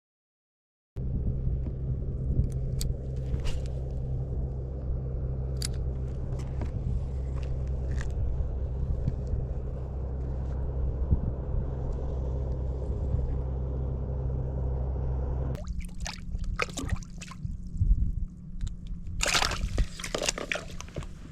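A steady low mechanical hum, like a vehicle running, with a few faint ticks. About fifteen seconds in it changes to a lighter hum with clicks and rustling handling noises.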